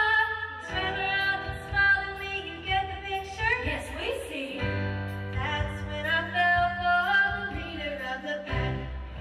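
Young women's voices singing in harmony over musical accompaniment, amplified through stage speakers.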